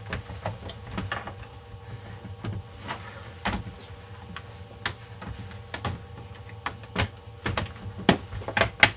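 Plastic laptop casing parts being lined up and pressed into place by hand: irregular sharp clicks and knocks, the loudest near the end.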